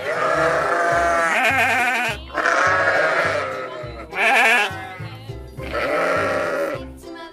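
Sheep bleating four times in long, quavering calls over children's background music with a steady beat.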